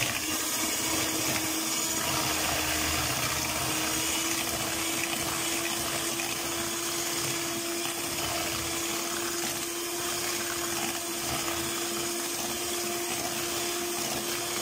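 Handheld electric mixer running at a steady pitch, its twin beaters whisking eggs and sugar in a plastic bowl with a rattling hum.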